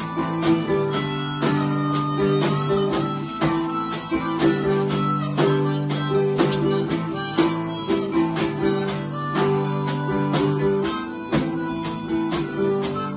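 Live acoustic guitar strummed in a steady rhythm, about two strokes a second, with long held reedy notes over it during an instrumental passage of the song.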